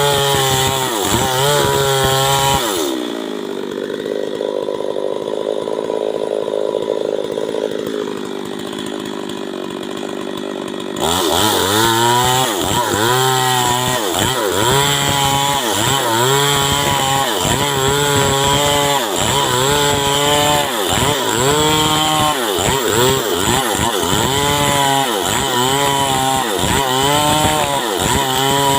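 Stihl MS 382 two-stroke chainsaw running, its engine pitch repeatedly dipping and rising about once a second. From about three seconds in to about eleven seconds it turns steadier and duller, then the full sound returns suddenly.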